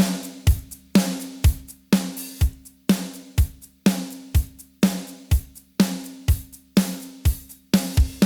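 Drum kit (kick, snare, hi-hat and cymbal) playing a steady groove through a compression and vintage-era noise plugin, with a strong hit about once a second and lighter hits between.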